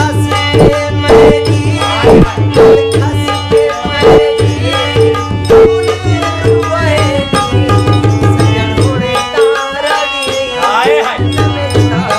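Live folk song accompaniment: tabla playing a steady rhythm with deep bass-drum thumps over sustained harmonium chords, with a male voice singing long gliding notes. The low tabla thumps drop out for a couple of seconds about nine seconds in.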